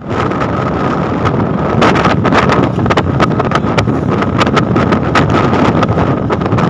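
Wind buffeting the microphone of a moving vehicle at road speed, with road and engine noise beneath and frequent short crackles from the gusts. A faint steady whine runs under it.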